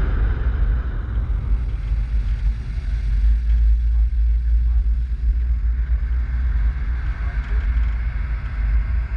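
Steady low rumble of a car driving slowly on pavement.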